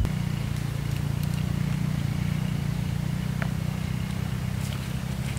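A motor running steadily with a low, even drone. A few light clicks sound over it.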